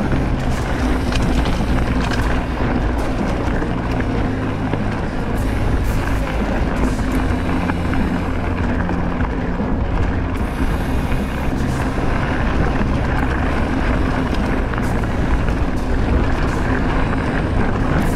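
Wind rushing over the microphone of a camera carried on a moving bicycle, steady and loud, with small clicks and rattles from riding over the trail.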